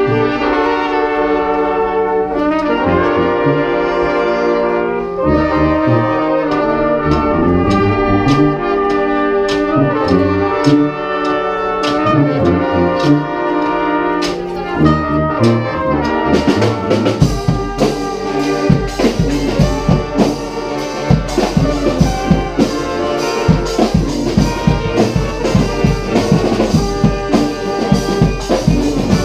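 Brass street band playing, trombones and trumpets holding sustained phrases. About seventeen seconds in, drums come in with a steady beat and the playing gets fuller and more rhythmic.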